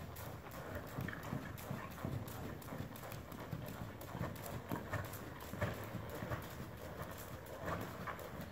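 A ridden horse's hoofbeats on the sand footing of an indoor arena, a steady rhythm of thuds.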